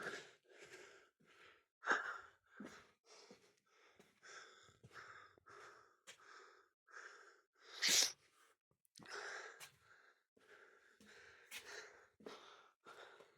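Soft footsteps scuffing on a gritty tunnel floor, about two a second, with a louder short noisy burst about eight seconds in.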